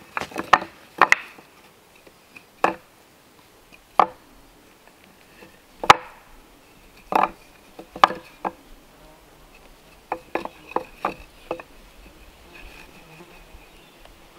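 Small cut wooden blocks being set down and knocked together on a wooden slab, making about fifteen sharp wooden clacks, some in quick runs of three or four. A fly buzzes faintly between them.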